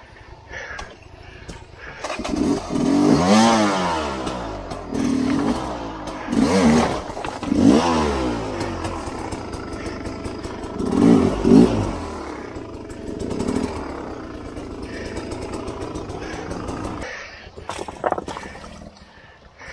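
Sherco 250 SE-R two-stroke dirt bike engine revving hard in repeated bursts, its pitch sweeping up and down. It then runs more steadily and cuts out near the end.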